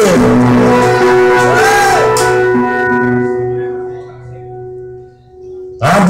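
Electric blues band holding a ringing chord on an amplified cigar box guitar and bass, with a short bend in the guitar about two seconds in and the cymbals fading. The chord decays away over a few seconds, then the full band and singing crash back in just before the end.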